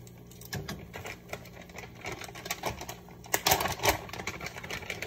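Metal tongs clicking and scraping against a pot while tossing spaghetti, with irregular sharp clacks. A cluster of louder clacks comes a little past halfway, as the tongs are laid across the pot.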